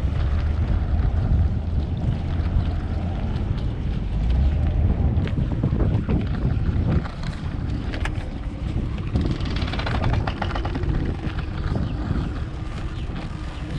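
A trawler's engine running at low speed as the boat comes into its slip, a steady low rumble with wind buffeting the microphone. The rumble eases a little about seven seconds in, and there is a sharp click about a second later.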